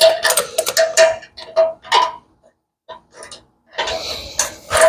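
Small metal parts clicking and clinking as a steel fuel line and its fittings are handled and hooked back up to the tractor's fuel tank, several quick clicks with a short ringing note in the first two seconds, then a brief rustle near the end.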